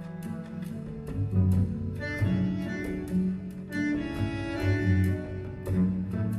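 Recorded music played through a Devialet Phantom wireless speaker: an instrumental stretch of a song with a steady beat and no vocals.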